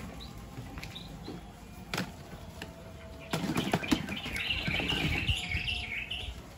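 Plastic mesh crates knocked and shifted on a concrete floor: a couple of knocks, then a scuffling rattle from about three seconds in. Birds chirp near the end.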